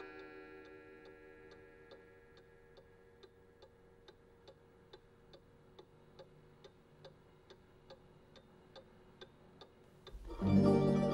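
A clock ticking steadily at a little over two ticks a second, while the ringing tones of a chime fade out at the start. About ten seconds in, balalaika music starts.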